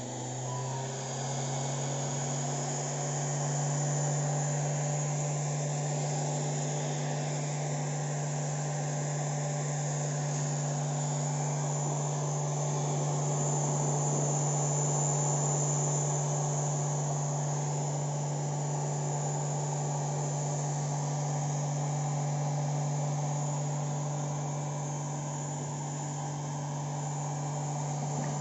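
Small AC motor fed by a single-phase PWM bridge inverter, running at a steady speed after spinning up: a steady electric hum with a faint high whine above it.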